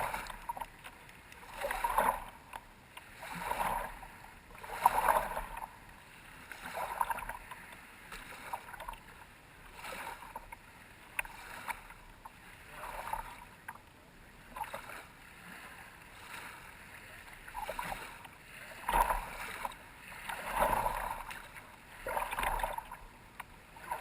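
Water splashing and sloshing in repeated surges every second or two.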